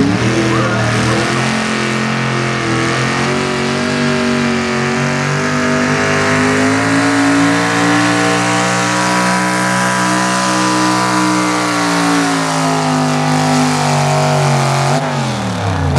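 V-8 engine of a hot rod Cockshutt 570 pulling tractor at full throttle, dragging the pulling sled. The revs climb at the start, rise slowly and then sag as the load builds, and fall sharply about a second before the end as the pull finishes.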